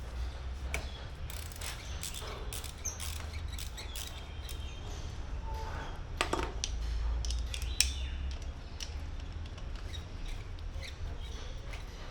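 Irregular small metallic clicks and taps of hand tools and parts being worked on a Brembo front brake caliper while its pad retaining pin is removed, with a louder knock about six seconds in and a sharp click near eight seconds.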